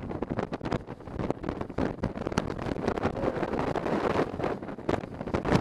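Touring motorcycle riding at speed, its engine and road noise under heavy wind buffeting on the microphone that comes in rapid irregular gusts.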